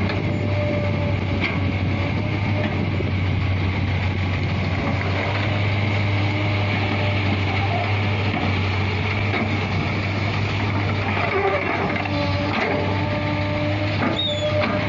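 Kobelco hydraulic excavator's diesel engine running steadily as it digs sand and swings the bucket to load a dump truck, with a few short knocks from the bucket and soil, the loudest near the end.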